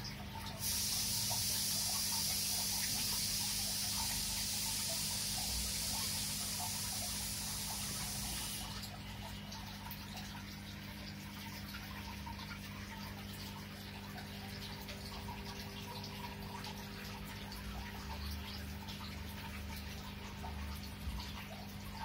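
Aquarium water bubbling and trickling over a steady low electric hum from the tank's equipment. A loud high hiss sits on top for the first eight seconds or so, then stops.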